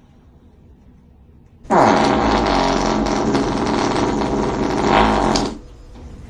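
A long, loud fart, starting about two seconds in and lasting about four seconds, with a buzzing pitch that drops as it begins.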